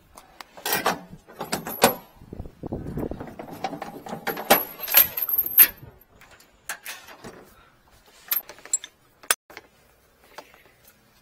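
Metal clatter, rattles and knocks from gear being handled on the back of a high-pressure drain-jetting truck, busiest over the first six seconds with a brief high metallic squeal twice, then a few separate sharp clicks.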